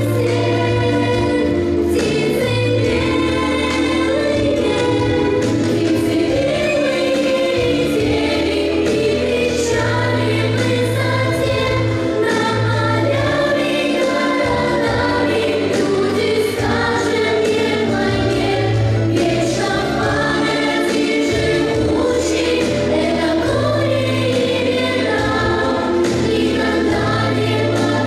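Music: a choir singing a song over sustained low bass notes.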